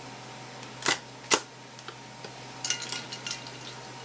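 Two sharp knocks of a kitchen knife cutting through a raw shrimp's shell onto a wooden cutting board, about a second in and half a second apart. Then a quick run of small clinks with a short metallic ring as a hand reaches among the ice cubes in a stainless steel bowl of ice water, over a faint steady hum.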